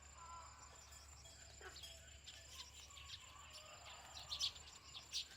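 Small birds chirping faintly, with a run of quick, high chirps from about four seconds in.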